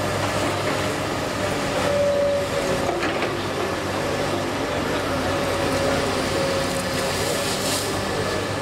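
Komatsu PC210LCi excavator's diesel engine running under load while it digs and swings, a steady hum with a thin whine that rises and fades several times.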